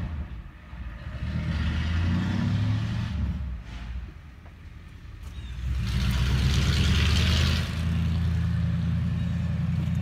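Skid steer's diesel engine running with a steady low drone, easing off briefly about four seconds in and coming back louder about a second and a half later.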